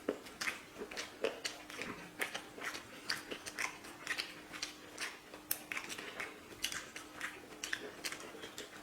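Close chewing and lip smacks of people eating chicken biryani: many short, wet clicks in an uneven rhythm, a few a second.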